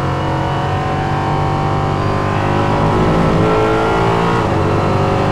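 Nissan V8 of a Ligier JS P320 LMP3 prototype, heard from the cockpit, pulling under throttle with its pitch climbing slowly. About four and a half seconds in the note dips briefly, as at a gear change, then climbs again.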